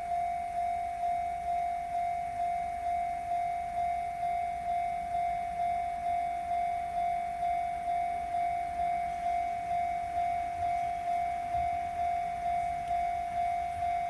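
Japanese level crossing's electronic warning bell ringing steadily, a little under two fading dings a second on a single tone, sounding while the barriers are down for an approaching train.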